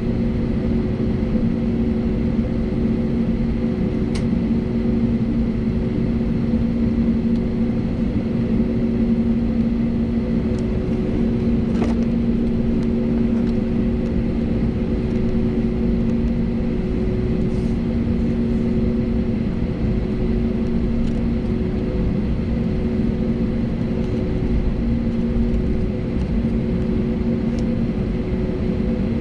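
Airbus A320neo's geared turbofan engines idling, heard inside the cabin while the airliner taxis after landing: a steady hum with several constant low tones. A couple of faint ticks sound about 4 and 12 seconds in.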